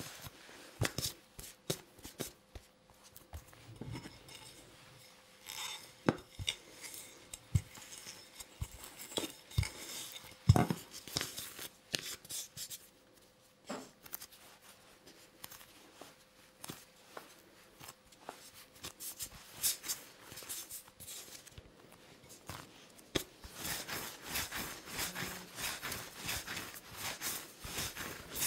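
Hands working bagel dough on a floured wooden board: scattered soft taps and thuds as the dough pieces are handled and pressed flat. Near the end comes a quicker, steady rubbing as a piece is rolled back and forth into a rope.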